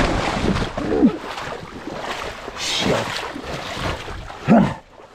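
Dirt bike engine revving up and down in short bursts, over a steady rush of noise, with the loudest rev near the end.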